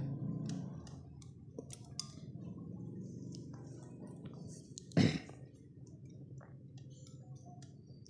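Small clicks and handling noises from wires being twisted together, over a low steady hum, with one sharp knock about five seconds in.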